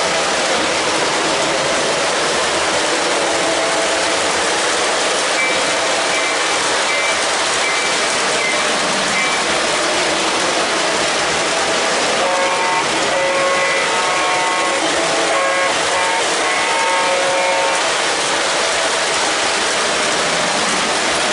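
Lionel O-gauge RS-3 diesel and aluminum passenger cars rolling on three-rail track, a steady rumble of wheels and motor. About halfway through, the locomotive's electronic sound system gives a run of short horn toots.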